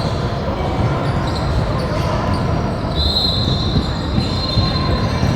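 Basketball game sounds in a gym: a ball bouncing on the court amid general hall noise. About three seconds in, a steady high whistle blast lasts a little over a second, typical of a referee's whistle.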